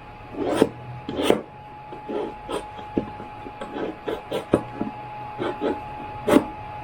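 Camping cookware and gear being handled: a string of irregular scrapes, rustles and light knocks, with sharper clicks about half a second in, just over a second in, and near the end.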